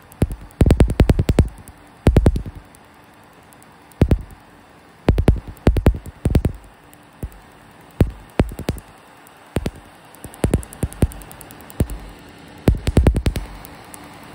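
Tattoo-removal laser firing on tattooed skin: sharp snapping clicks, one per pulse, in quick runs of several with pauses of a second or so between runs.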